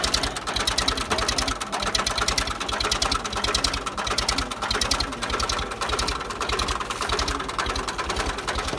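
Ursus tractor's diesel engine running with a fast, even beat under load, while the tractor is stuck in the mud of a flooded paddy.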